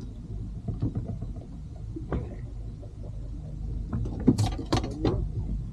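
Knocks and clicks of fishing gear handled on an inflatable boat's deck: one around two seconds in and a cluster between about four and five seconds, over a steady low rumble.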